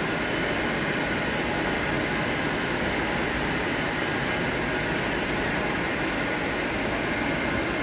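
1B240 six-spindle automatic lathe running with a steady, even mechanical noise and a faint hum, with no change.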